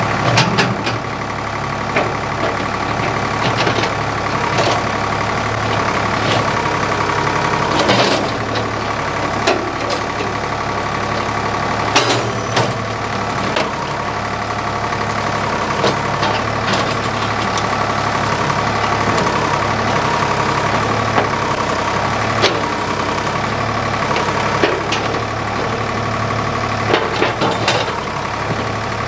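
Ford 555 backhoe's diesel engine running steadily while working the bonfire pile, with sharp knocks and cracks every few seconds.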